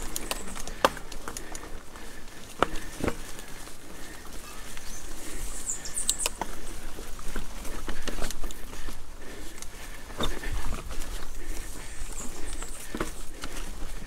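Mountain bike rolling over a rocky, rooty trail: irregular knocks, clatters and rattles from the tyres, chain and suspension hitting rocks, over a steady rolling rush.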